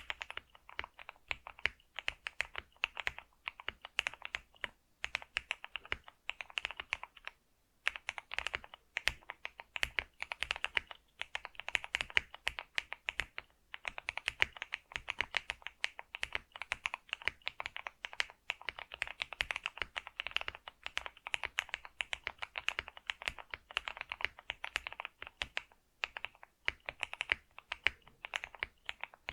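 Steady, fast typing on a computer keyboard: a continuous run of key clicks, broken by a few short pauses.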